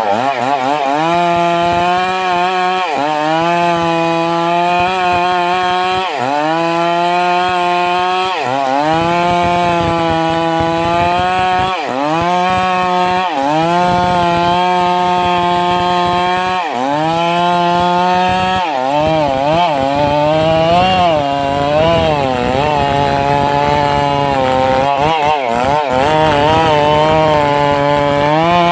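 Stihl MS 382 two-stroke chainsaw running near full throttle while cutting wood, its engine pitch dropping under load and climbing back every few seconds.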